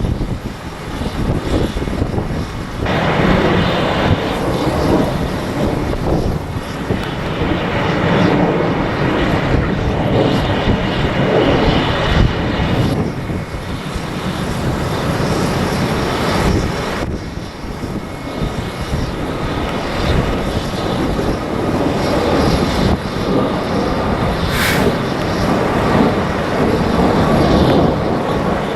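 Strong gusty wind buffeting the microphone: a loud, rumbling rush that swells and eases with the gusts.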